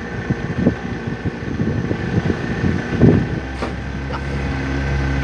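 Boat motor running steadily under way, with a thin steady whine above its low hum. Irregular low thumps over the first three seconds give way to a smooth, even drone.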